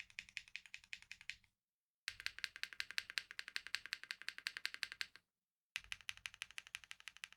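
Typing sound test on an LM60 v2 60% custom keyboard with Akko Matcha Green linear switches, JTK Emerald ABS keycaps and an FR4 plate, modded with a force-break layer, tape and EVA foam. It plays as three runs of quick keystrokes, about ten a second, broken by two short silent gaps.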